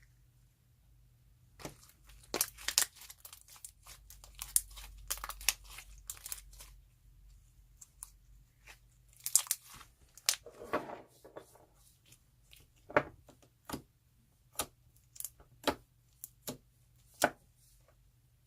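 Plastic snack packaging being torn and crinkled. A dense run of sharp crackles comes over the first few seconds, then single crisp crackles follow about once a second near the end.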